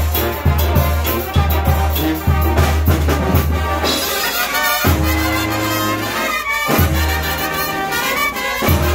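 Live brass band playing dance music, a tuba-type bass pulsing out short notes on the beat for the first few seconds and then holding longer notes under the horns and drum.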